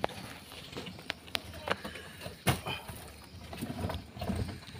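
A few short, sharp knocks and thuds, the loudest about halfway through, over low background noise.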